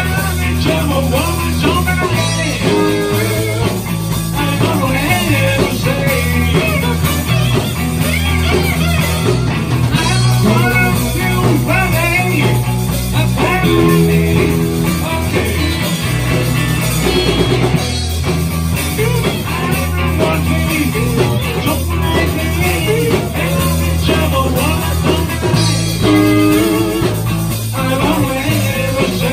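Live rock and roll band playing: two electric guitars and an electric bass over a drum kit, with a man singing the lead into the microphone. The bass line repeats and shifts every few seconds.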